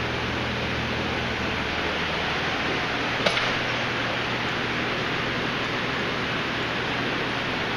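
Steady rushing noise with a low hum, typical of aquarium filters and pumps running in a fish room, with one sharp click about three seconds in.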